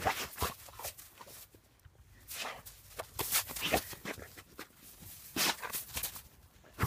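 A Dalmatian snuffling with its nose pushed into the snow and crunching through it with its paws: a series of short, irregular sniffs and crunches.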